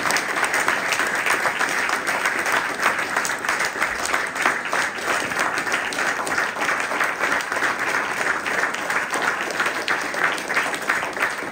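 Audience applauding: many hands clapping together at an even, steady level.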